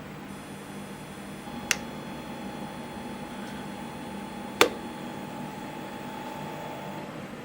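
Two sharp clicks about three seconds apart, the second the louder, over a steady low hum, with a faint steady tone running between them.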